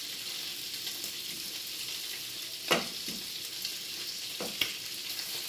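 Strips of bacon sizzling in their fat on a griddle, a steady hiss. Two sharp clicks stand out, one about halfway through and another near the end, as the bacon is handled and flipped.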